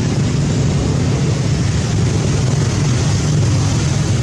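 A steady, unbroken low mechanical drone with hiss, like a motor running.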